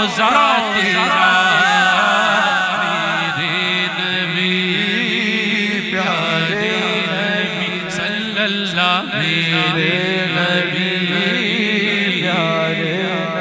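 Male voices singing a naat (Islamic devotional song) in a long-held, ornamented chanting style, over a steady low drone.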